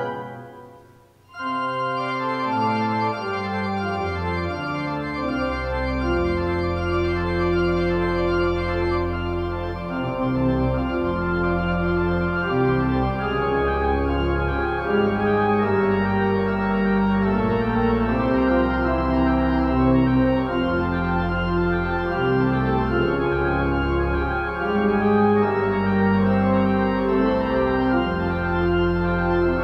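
Organ playing slow, sustained chords over long held bass notes. A chord fades out just after the start, and after a short break the playing starts again and carries on with steady chord changes.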